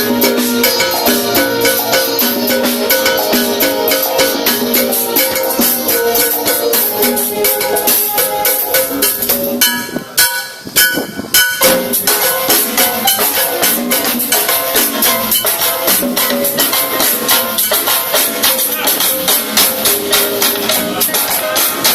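A live band playing upbeat music with a steady drum and percussion beat under pitched melody lines. About halfway through the band breaks off for a moment, then comes back in.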